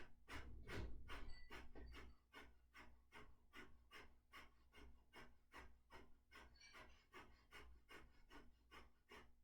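Kapalbhati breathing: a fast, even train of short forceful exhalations through the nose, about three puffs a second, each driven by a snap of the abdomen and followed by a silent passive inhale. The puffs are faint and grow softer after the first couple of seconds.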